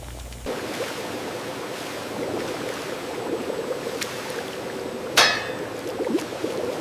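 Steady rush of running, churning water with machinery noise and a faint hum, setting in about half a second in. One sharp clank about five seconds in.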